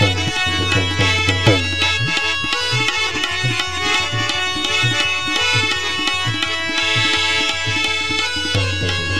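Instrumental break in a live qalandari devotional song: tabla drumming with low strokes about twice a second under sustained melodic notes, with no singing.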